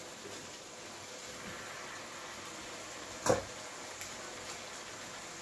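Fried rice with prawns and vegetables sizzling steadily in a stainless steel pan as it is stirred. One sharp clank of a utensil on steel cookware comes a little over three seconds in.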